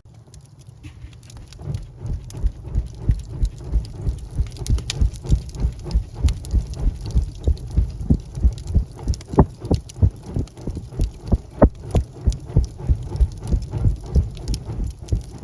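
Wood fire crackling in a fireplace: a dense, irregular run of pops and snaps over a low rumble, soft at first and building within the first couple of seconds.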